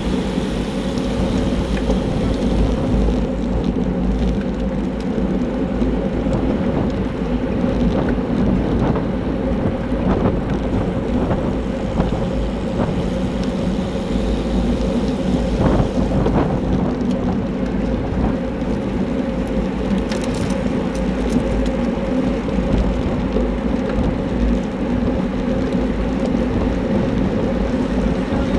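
Wind rushing over the microphone of a handlebar-mounted camera on a racing bicycle at speed: a steady, loud rush with a few faint clicks.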